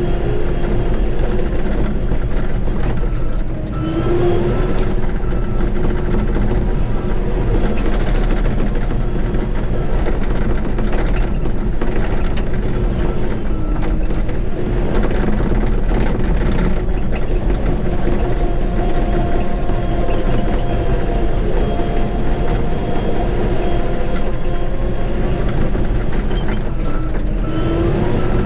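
Shantui bulldozer's diesel engine running steadily under load, its pitch dipping and picking up again about four seconds in and once more near the end.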